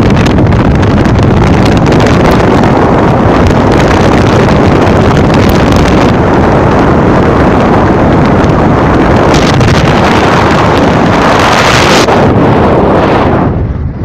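Loud wind buffeting the microphone over road noise from a Chevrolet car driving at speed. The rush swells about eleven seconds in and dips briefly near the end.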